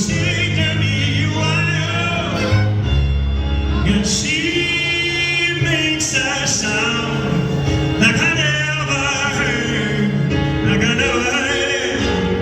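Live pop song in a string arrangement: a male lead voice sings long, wavering notes over sustained strings and bass.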